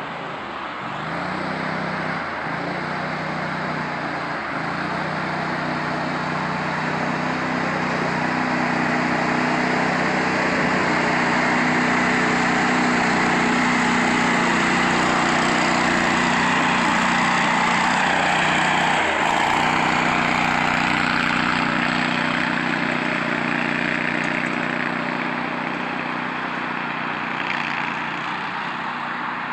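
Amphibious 6x6 ATV's engine running steadily as its wheels churn and splash through the lake water. It grows louder as the vehicle passes close by in the middle, then fades as it drives off.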